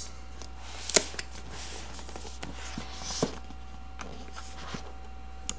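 Cardboard retail box being handled and turned over: scraping and rustling with a few knocks, the loudest a sharp knock about a second in.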